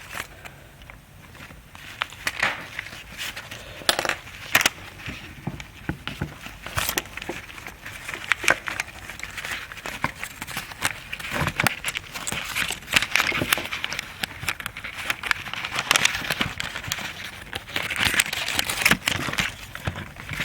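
Irregular small clicks, ticks and light scrapes of a fine pin and fingers working the terminal pins in and out of a turn signal switch's plastic wiring connector.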